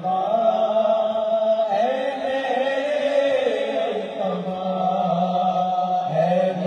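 Male voices chanting a noha, a Shia mourning lament, in long held notes that waver up and down.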